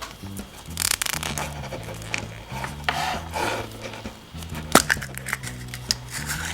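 Crinkling and rustling of a wrapper being handled, with a few sharp clicks, the loudest about three-quarters of the way through, over quiet background music.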